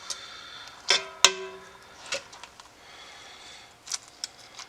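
A metal utensil knocking on a Dutch oven and its contents: a soft knock just before a second in, then a sharp metallic clink that rings briefly, followed by a few light taps.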